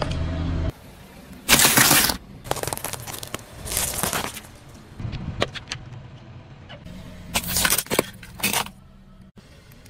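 A car tyre rolling over and crushing small objects on pavement. There are about five short bursts of crunching and crackling, with quieter rustling between them.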